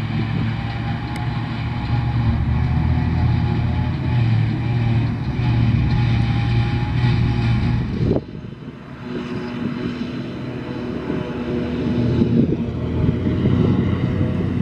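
Claas Jaguar forage harvester and Fendt tractor running under load while chopping grass and blowing it into a silage trailer: a steady, heavy diesel drone. About eight seconds in the sound drops abruptly and changes to a different engine note that builds up again.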